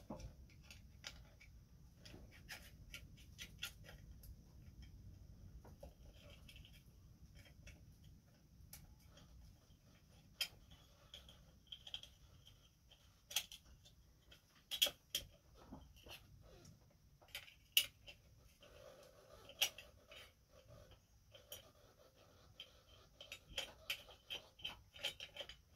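Faint, irregular clicks and ticks of metal parts on a vintage class 15 sewing machine as it is handled and worked by hand, growing busier near the end.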